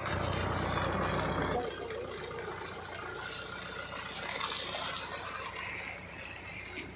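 A vehicle engine idling with a steady low hum, louder for about the first second and a half and then fainter.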